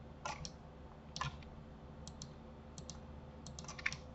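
Faint, scattered clicks of a computer mouse and keyboard, about a dozen, with a quick run of clicks near the end.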